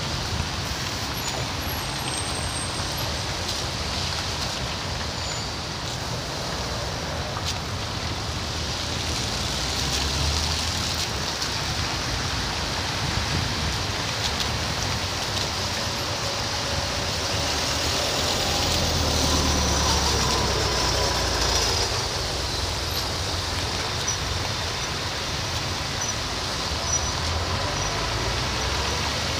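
Road traffic on a wet, slushy street: engines running and tyres hissing on the wet surface as cars and trucks pass. It swells louder for a few seconds past the middle as a heavier vehicle goes by.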